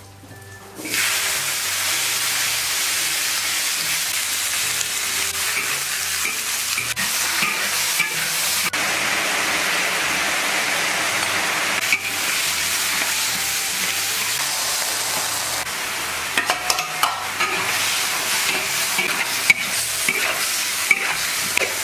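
Wet potato slices hitting hot oil in a large wok, sizzling loudly from about a second in and frying steadily on, with the clack and scrape of a metal spatula stirring them in the later seconds.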